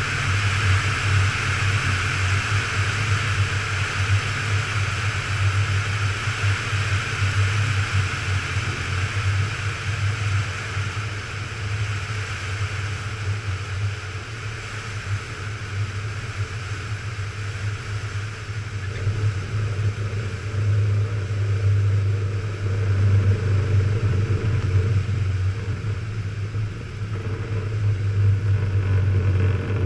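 Van's RV-9A's piston engine and propeller running through a landing, heard from outside on the wing: a steady engine drone under a rush of wind. The wind rush dies away over the first half as the plane touches down and slows on the runway, while the engine drone goes on, swelling again near the end.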